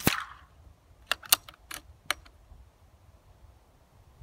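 A sharp crack right at the start with a short ringing tail: a pellet from the BSA R10 Mk2 air rifle striking the target board. It is followed about a second later by a quick run of five or six small mechanical clicks as the rifle's action is cycled to load the next pellet.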